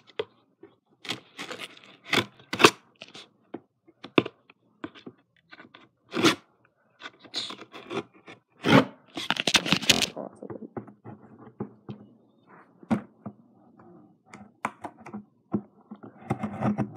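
Cardboard shipping box being cut and pried open with a blade. Irregular scrapes, scratches and sharp tearing of cardboard and tape, with a longer stretch of tearing about nine seconds in.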